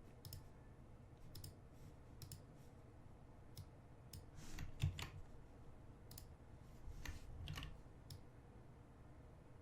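Faint computer mouse clicks, about ten, at irregular intervals, made while editing in Photoshop.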